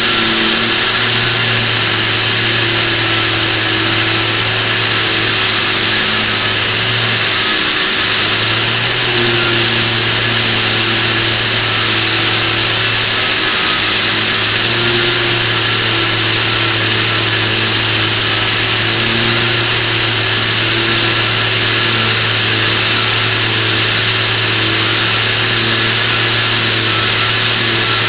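Random orbital sander running steadily on the wooden top of a piano bench: a loud, even hiss over a low motor hum, without a break.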